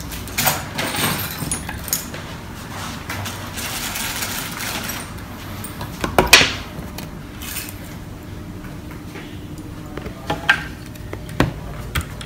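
Small metal hardware being handled: scattered light clicks and clinks of screws and metal corner brackets, with one sharper knock about six seconds in.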